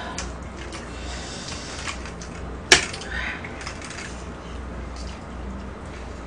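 Chopsticks and tableware clicking against plates while eating, with one sharp clack about two and a half seconds in, over a steady low hum.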